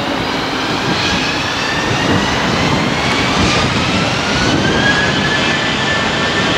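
Jet airliner engines running loud: a heavy rushing roar with a whine that climbs steadily in pitch, growing slightly louder.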